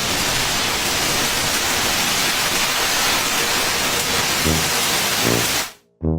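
A steady, loud rushing hiss that cuts off suddenly near the end, with a couple of faint low notes of background music under it.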